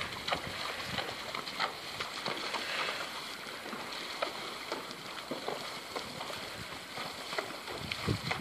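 Horse wading in a shallow creek: scattered soft splashes of its hooves in the water over a steady rush of running water.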